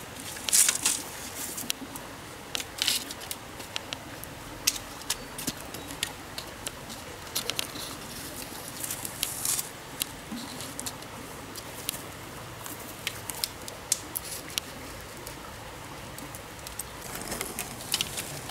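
Thin bamboo poles knocking and clattering against each other as they are handled, picked up and laid down: an irregular string of sharp knocks and rattles.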